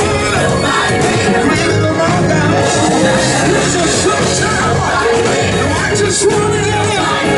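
Live gospel music: a choir singing with keyboard accompaniment, amplified through the stage's PA speakers.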